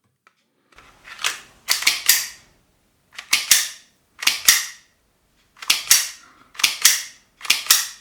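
Slide of a Glock 17 Gen 4 CO2 BB pistol being racked by hand, pulled back and snapping forward with sharp metal clacks, about seven times at roughly one-second intervals. The slide, freshly lubricated with Vaseline, now cycles without sticking.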